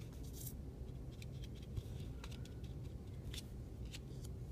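Paper cutouts handled and pressed down onto a paper collage by hand: a few short scratches and rustles of paper on paper, over a steady low hum.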